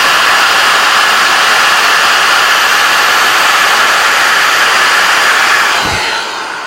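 Power drill running steadily while spinning a screw against emery cloth to polish it, a loud whir with a sanding hiss. Near the end the trigger is let go and the drill winds down.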